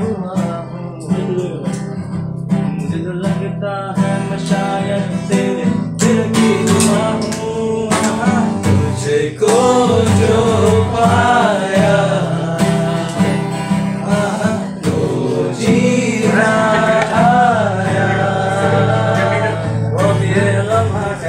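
A man singing while strumming a steel-string acoustic guitar. His voice grows louder about nine seconds in.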